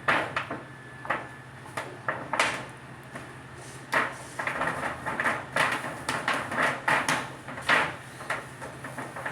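Irregular knocks, clunks and short rattles from handling sheet metal and tools, busiest in the second half, over a steady low hum.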